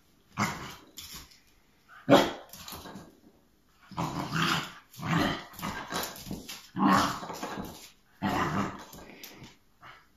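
Puppy barking and growling in about six separate bouts, worked up over a beef bone that it can't manage to pick up.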